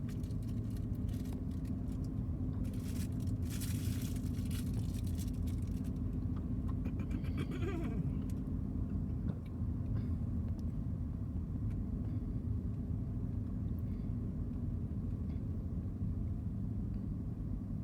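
Interior drone of a Ford car driving: a steady low rumble of engine and road noise inside the cabin, with a few seconds of hissing noise a few seconds in.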